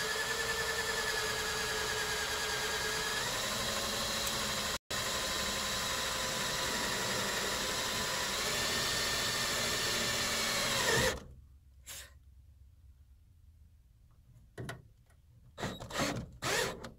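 Power drill running for about eleven seconds, its motor pitch dropping slightly about three seconds in, then stopping, followed by a few light knocks. It is fastening a wooden ceiling panel.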